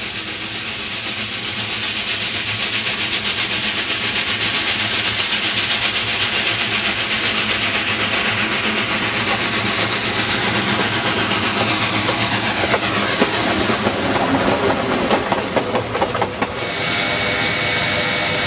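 Southern Railway 2-8-0 steam locomotive #401 approaching and passing close by under steam: rhythmic exhaust beats over hissing steam, with clanks and clacks from the running gear and wheels as it goes past. Near the end this gives way to a steady hiss of steam from the locomotive standing still.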